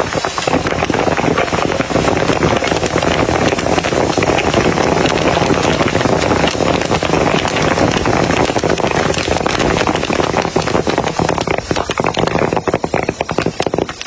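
Popcorn kernels coated in red syrup popping in a large open wok: a dense crackle of rapid pops that thins to separate pops near the end.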